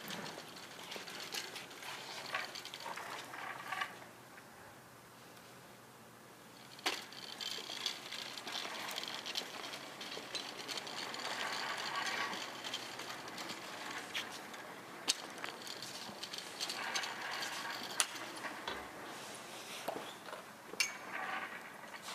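Background noise of a large indoor hall, with scattered sharp clicks and knocks. It drops quieter for a couple of seconds about four seconds in.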